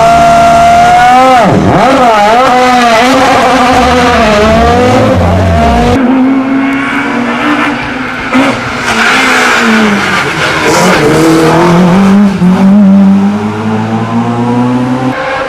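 Hillclimb race car engine revving hard, its pitch rising and dropping repeatedly with gear changes and lifts as it passes. Tyres squeal through the noisier second half, and an engine note climbs again near the end.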